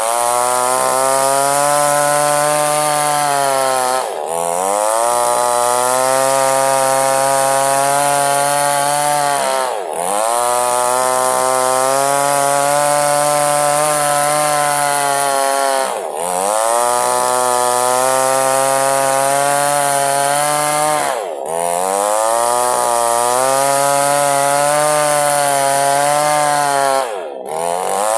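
Chainsaw running at high revs while ripping a log lengthwise into two halves. About every five to six seconds its note dips and drops in pitch for a moment, then climbs straight back up.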